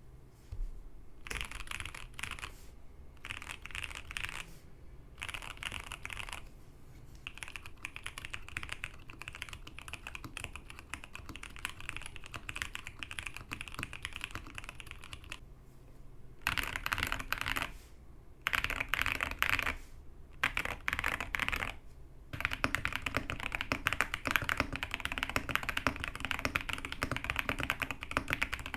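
Fast typing on a Zuoya GMK67 mechanical keyboard fitted with tactile switches: dense runs of key clacks in bursts a few seconds long, broken by short pauses. The later bursts are louder and deeper.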